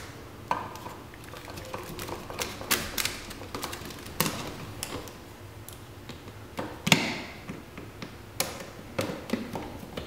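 Irregular clicks and taps of a screwdriver and a plastic outlet being worked and screwed into an electrical box. The sharpest click comes about seven seconds in.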